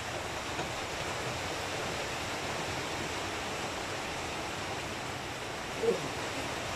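Steady airy hiss of an electric stand fan running, with one short, brief sound about six seconds in.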